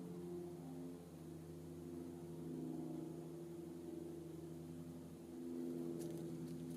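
Steady low hum of a distant motor, several tones held together, with a few faint clicks near the end.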